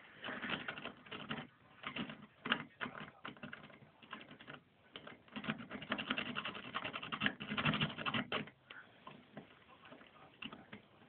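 Lock pick scraping and clicking against the pins inside a car ignition barrel as it is picked under tension, in rapid scratchy runs with short pauses between them, quieter near the end.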